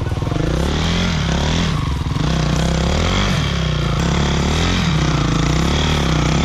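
Dirt bike engines: a Honda CRF450's single-cylinder four-stroke engine pulls slowly through deep snow toward the microphone, its pitch rising and falling with the throttle, over a steady engine running close by.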